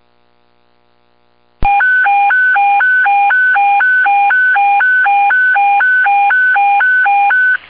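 Fire dispatch station alert tone received over a radio scanner: a loud tone cycling through three pitches about twice a second. It starts about a second and a half in and cuts off just before the end, after a faint steady radio hum.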